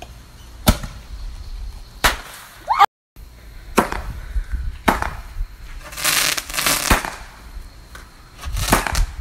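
Consumer fireworks going off: sharp bangs about once a second as shots launch, with spells of fizzing hiss around six to seven seconds in and again near the end. The sound cuts out completely for a moment just before three seconds in.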